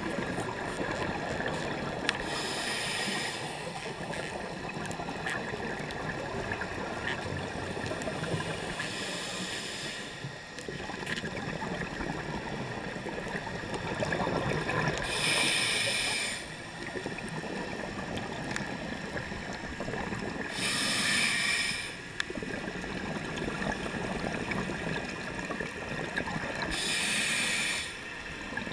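Scuba diver breathing through a regulator underwater: five loud hissing breaths with bubbles, about one every six seconds, over a steady underwater rumble.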